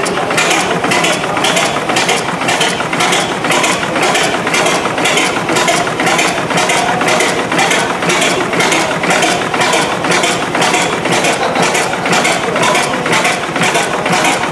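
Vintage tandem double-acting gas engine of Snow-like design running steadily, its mechanism clattering in an even rhythm of about two to three beats a second.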